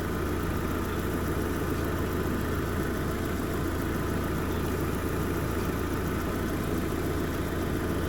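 2017 Fiat 500's engine idling steadily with the air conditioning switched on full, running the compressor while refrigerant is being charged in.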